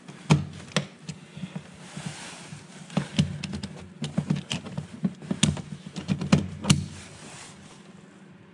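Irregular clicks and knocks of stiff electrical wires and plastic parts being handled and pushed into place in a distribution board enclosure, trial-fitting the wiring. The clicks come in scattered clusters and die away near the end.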